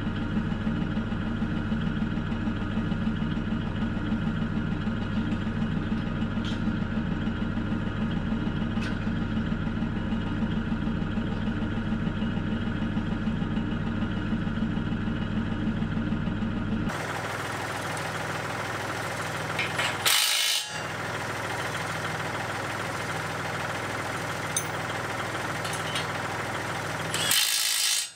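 Compact utility tractor's diesel engine idling steadily, with two short, louder bursts of noise in the second half.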